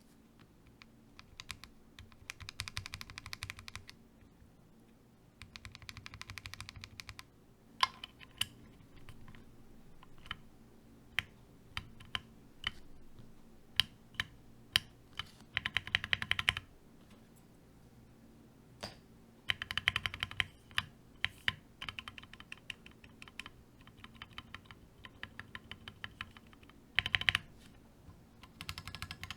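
Akko MOD005 mechanical keyboard being typed on: fast runs of keystrokes alternate with single, sharper key strikes spaced a second or so apart.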